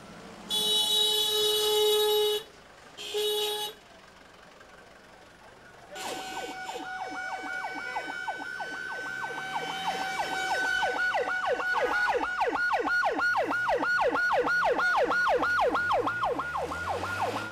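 A vehicle horn sounds twice, a long blast and then a short one. About six seconds in, an emergency vehicle's siren starts a fast yelp of about three rising-and-falling sweeps a second, growing louder over the next few seconds.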